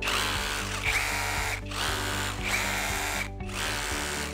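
Yamasu YMS-KP26 cordless SDS-plus rotary hammer running in hammer-drill mode. It is released and restarted twice, so it sounds as three runs of about a second and a half each.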